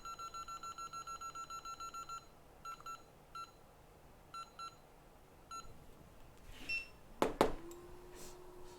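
Electronic beeping from a hot air rework station: a rapid run of identical beeps that stops about two seconds in, then several single and paired beeps. Near the end come two sharp clicks, and a steady hum begins as the hot air blower starts up to heat for reflowing the RAM chip.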